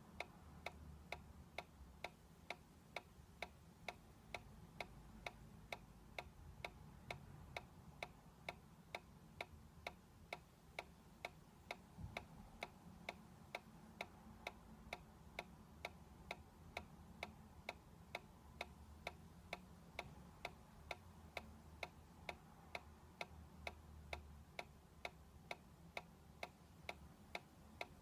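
Solar-powered dancing toy ticking softly and evenly, about twice a second, as its solar-driven magnetic swing mechanism pulses to rock the cactus figure from side to side.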